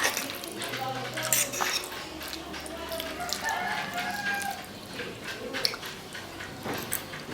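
Close-miked eating sounds: wet chewing with many short sharp mouth clicks.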